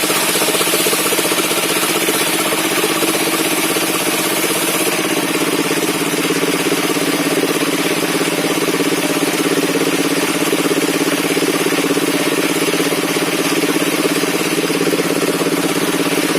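Engine of a circular-saw sawmill running steadily, with a small shift in its tone about five seconds in.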